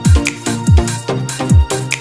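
Electronic background music with a steady beat: deep kick drums that drop in pitch, about three every two seconds, under sustained synth tones.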